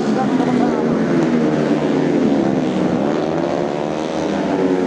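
Several tuned four-stroke underbone racing motorcycle engines running together, their pitches rising and falling as they are revved.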